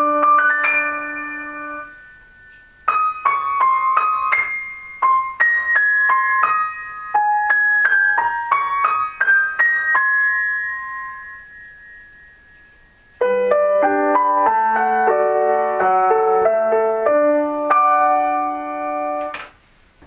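Piano playing Japanese train onboard announcement chimes, the short melodies heard before announcements on 485 series, KiHa 58 and 12 series trains. A phrase fades out, then two more short chime phrases follow after brief pauses, the last with lower notes added, ending with a short click.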